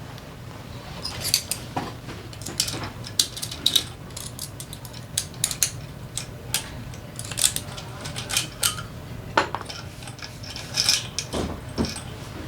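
Metal engine parts and hand tools clinking and tapping as a scooter engine is taken apart, a dozen or so irregular sharp clicks over a steady low hum.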